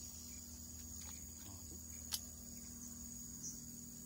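Steady, high-pitched chirring of insects, with one sharp click about two seconds in.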